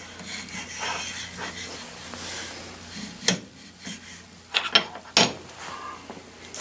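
Height gauge scriber scratching a layout line into a dye-coated steel block as the block is slid across a granite surface plate, followed by a few sharp clicks and knocks as the block is flipped and set down on the stone.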